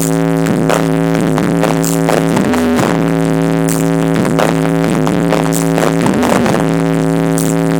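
Electronic DJ remix played loud through a sound system on its first sound check, with a steady beat, a deep bass and held synth chords.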